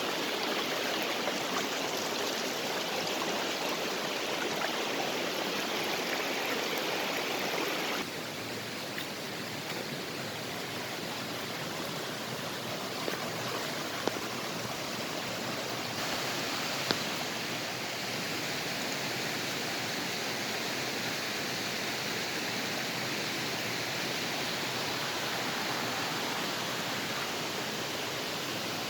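Steady rushing of a fast-flowing mountain creek, its level dropping slightly about eight seconds in and changing again about halfway through, with a couple of faint clicks.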